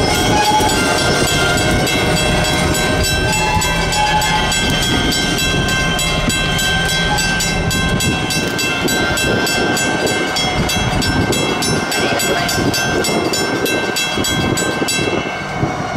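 Patriot Rail diesel locomotive 3805 and its tank cars rolling slowly away along the track: engine and wheel-on-rail rumble that weakens after about halfway. Steady high ringing tones and a rapid even ticking run over it and stop shortly before the end.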